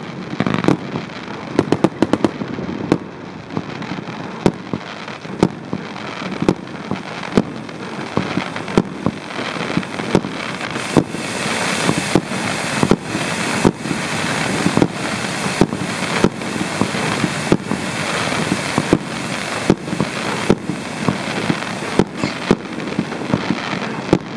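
Ground fountain firework (Pyrostar Ice Berg Vulkan, 190 g) burning: a steady rushing hiss of sparks that grows louder about ten seconds in, with sharp pops about once a second throughout, packed more closely in the first few seconds.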